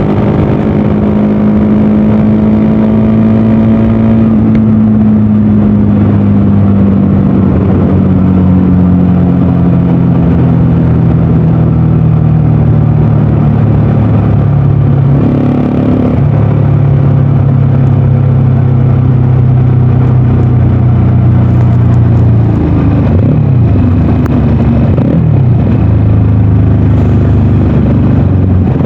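VOGE 300DS motorcycle engine and exhaust running at road speed, the engine note easing down slowly, then changing about halfway through and holding steady, with a few short dips and rises in pitch near the end.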